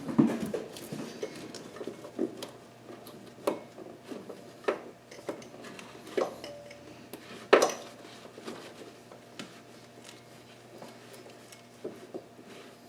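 Metal tools and engine parts clinking and clanking during hand work on an engine bay: scattered sharp knocks, with a louder clank at the start and another past the middle.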